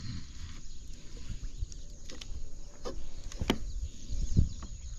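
Handling noises from a freshly caught fish and its lure: scattered clicks and knocks over a low rumble, the sharpest click about three and a half seconds in and a dull thump just after four seconds.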